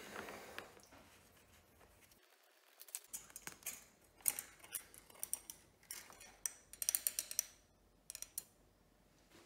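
Honda XR650R's oil dipstick cap being unscrewed and lifted out of its filler neck: a run of small, uneven clicks and light metal ticks, thickest a little past the middle.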